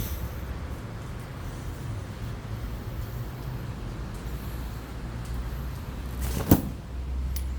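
Steady rain falling, with a low rumble underneath. One sharp knock a little over six seconds in, and a faint click shortly after.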